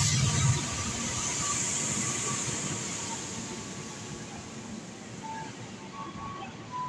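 Passenger train rolling along a far platform track: a rumble with a strong high hiss, loudest at the start and fading over the next few seconds to a quieter, steady running noise. A few short faint tones sound near the end.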